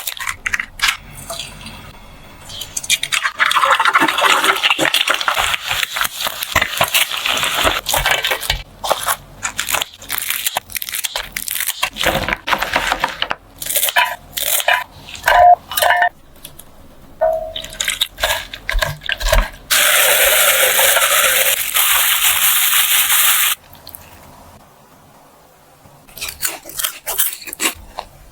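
Kitchen cooking sounds: utensils and dishes knocking, clinking and scraping, with a steady hiss for several seconds from about three seconds in and again for about three seconds near twenty seconds in.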